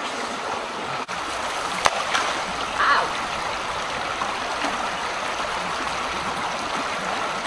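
Shallow creek running over rocks: a steady rush of water, with one sharp knock about two seconds in.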